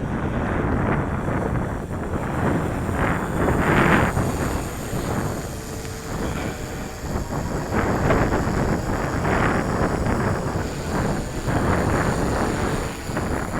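Gusty wind buffeting the microphone in swells, with a faint steady high whine from the six motors and propellers of an Align M690L hexacopter flying overhead.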